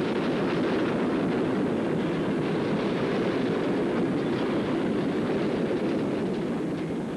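NER Class Q6 0-8-0 steam locomotive with a train of loaded coal wagons running downhill past the lineside, a steady rumble of wheels and wagons that fades a little near the end.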